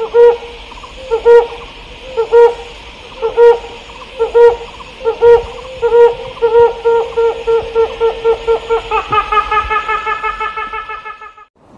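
A series of loud hooting notes, about one a second at first, then speeding up into a rapid pulsing trill that fades out near the end.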